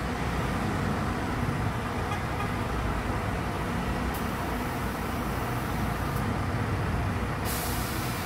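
Steady city street traffic noise. A brighter hiss rises about four seconds in and again near the end.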